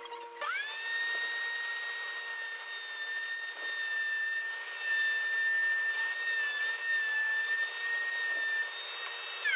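Table-mounted router with a chamfering bit spinning up about half a second in and running at a steady high whine. The wood block is fed past the bit, and it is louder from about halfway through. Near the end the motor is switched off and its pitch falls as it winds down.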